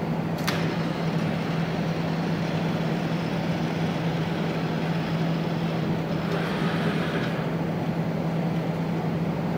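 Steady machine hum with a strong low tone, with one sharp click about half a second in.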